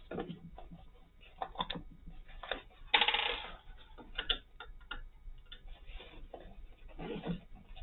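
Screwdriver undoing the screws that fix a pushchair's shopping basket to its frame: small irregular clicks and ticks of the tool and parts being handled, with a brief louder rasp about three seconds in.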